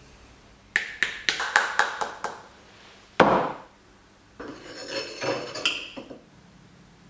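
Metal parts of a vintage Vespa rear shock absorber being handled: a quick run of about seven sharp clinks and knocks, one louder metallic bang with a short ring about three seconds in, then metal sliding and scraping for a second or two.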